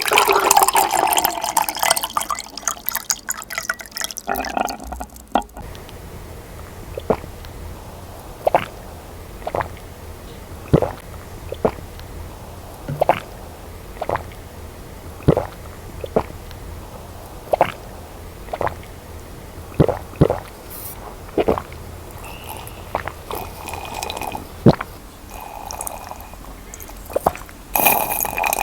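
A baby drinking milk from a bottle: sucking, with soft gulping swallows about once a second. The sounds are louder and busier over the first few seconds.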